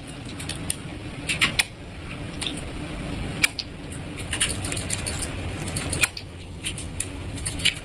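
House cat purring steadily close to the microphone, a low even rumble, with scattered sharp clicks and smacks as it licks and nibbles a person's hand.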